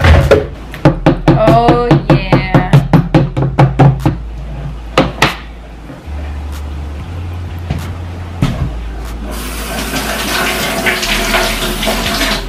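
A quick run of sharp clicks and clinks over the first four seconds, then water running from a kitchen tap for the last few seconds.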